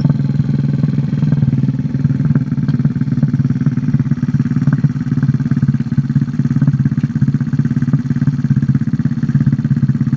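Motorcycle engine running steadily at an even, unchanging speed.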